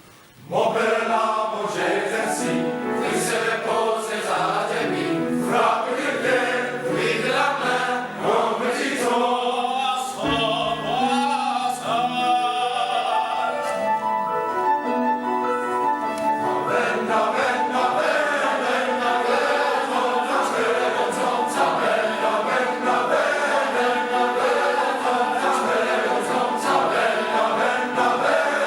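Men's chorus singing as background music, with a short pause a little over ten seconds in before the voices come back in.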